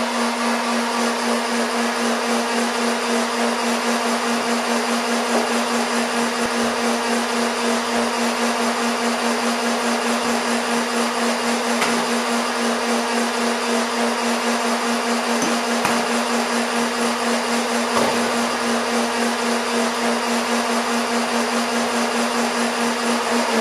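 Motorized Nerf Rival blaster's flywheel motors revved and held spinning without firing, a steady motor whine at one pitch. It stops at the end, falling in pitch as the flywheels spin down.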